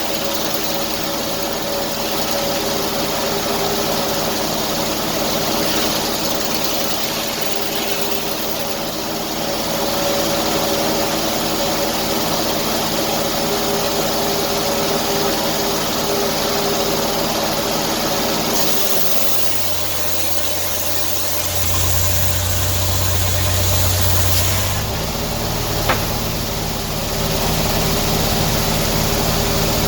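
Engine running steadily. About two-thirds of the way through, the sound changes and a strong low hum swells for a few seconds. There is one sharp click near the end.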